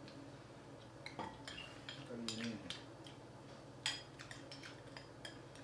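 Spoons and chopsticks tapping and clinking against bowls and dishes while people eat: a few scattered light clicks, the sharpest about four seconds in.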